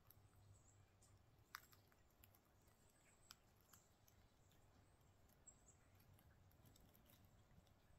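Near silence: faint outdoor quiet with a few scattered light clicks and ticks, the loudest about one and a half seconds in.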